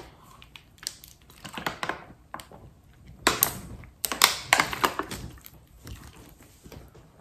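Thin plastic water bottle crinkling and crackling as it is gripped and drunk from, in irregular sharp crackles that are loudest about three to four seconds in.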